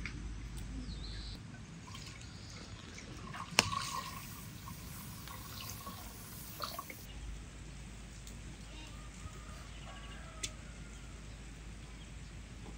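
Liquid poured from a clay jug into a metal pot for about five seconds, starting a little over a second in, with one sharp knock about two seconds into the pour.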